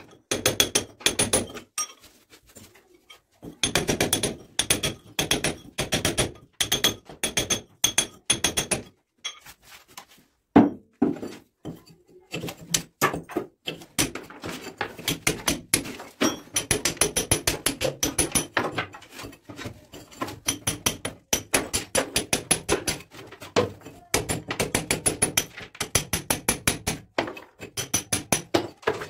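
Hand hammer repeatedly striking a steel chisel, cutting a groove into a brick wall for electrical wiring pipe. The blows come fast and steady, several a second, each with a short metallic ring, and there are two brief pauses.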